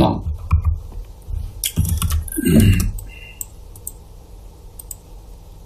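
A few sharp clicks from computer use at a desk, with a quick cluster about two seconds in, over a faint steady hum.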